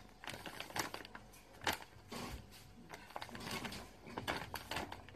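Brown paper bag crinkling and rustling in irregular sharp crackles as a kitten paws and scrabbles at it.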